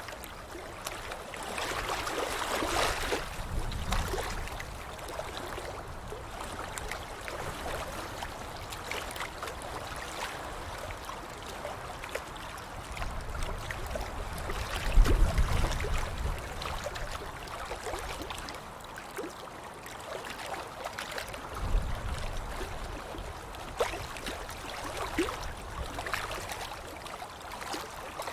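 Water splashing and sloshing, with many small splashes one after another and a few heavier surges; the heaviest, about halfway through, carries a deep low thump.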